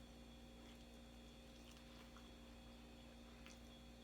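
Near silence: room tone with a faint steady electrical hum and a few faint ticks.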